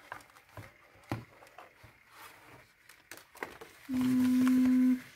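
Paper pages of a cut-out picture book rustling and flipping as they are handled, with light taps. About four seconds in, a steady hummed 'mmm' held for about a second.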